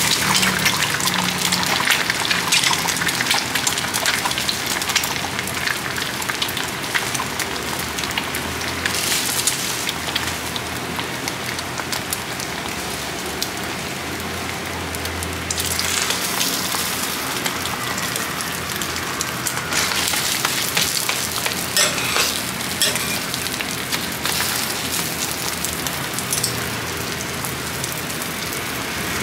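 Beaten egg frying on a hot flat-top griddle: a steady, dense crackling sizzle with a few louder spatters now and then.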